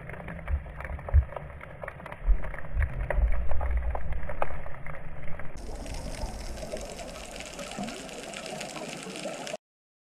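Muffled water noise picked up by a camera underwater, with low thumps and scattered sharp clicks. About halfway through it changes abruptly to a brighter, steady water hiss, which cuts off to silence near the end.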